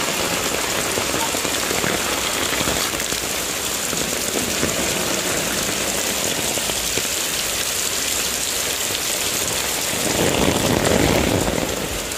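Heavy monsoon rain pouring steadily, swelling briefly louder about ten seconds in.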